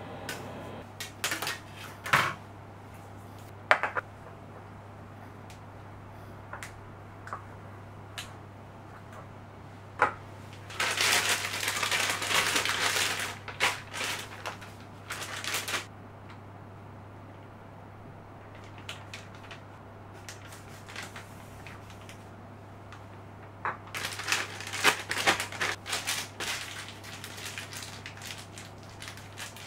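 A few sharp clicks of metal chocolate scrapers knocking together, then loud crinkling and rustling of a disposable plastic piping bag being shaken open and, near the end, twisted; a steady low hum runs underneath.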